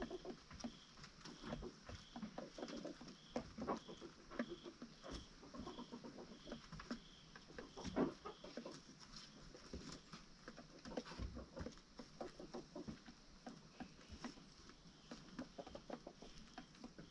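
Chickens moving about and pecking: irregular soft taps and rustles, with a faint high chirp repeating about twice a second through most of it.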